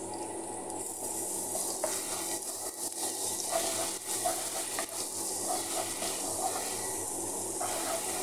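Minced garlic sizzling in hot oil in a nonstick frying pan, stirred with a wooden spoon that scrapes across the pan in repeated strokes. This is the sauté stage at the start of a filling.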